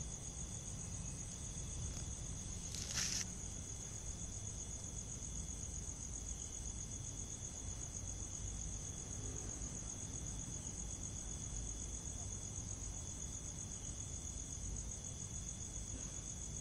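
Steady insect chorus of high-pitched trilling, with a fainter steady tone lower down. A short burst of noise comes about three seconds in.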